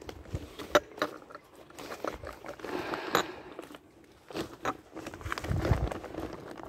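Cats crunching dry kibble: irregular crisp crunches and clicks.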